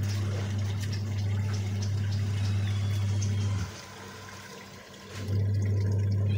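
Electric pressure washer running and spraying water onto a mesh air filter cartridge, its motor giving a steady low hum under the hiss of the spray. It stops about three and a half seconds in and starts again about a second and a half later, as when the trigger is released and pressed again.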